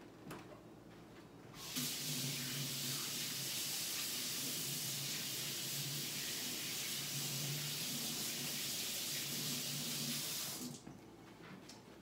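Water running steadily from a tap into a sink, turned on about two seconds in and shut off about a second before the end.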